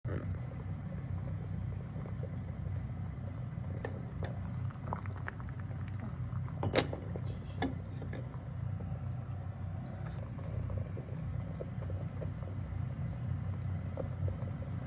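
Small lidded aluminium pot boiling on a stove: a steady low rumble of bubbling water under a glass lid. There are a few light taps and clicks, the loudest about seven seconds in.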